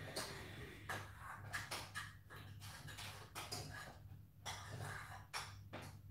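Faint room tone: a low steady hum with scattered soft clicks and rustles.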